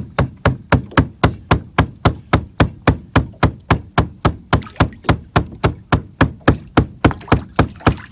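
Steady, rapid knocking: sharp, loud knocks repeating evenly about four times a second.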